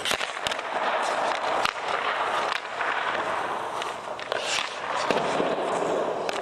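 Ice hockey skate blades scraping and carving on the ice close by, with several sharp cracks of a stick striking pucks.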